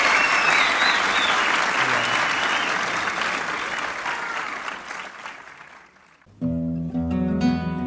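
Audience applause fading out over about six seconds, dying almost to silence, then an acoustic guitar starts playing a little over six seconds in.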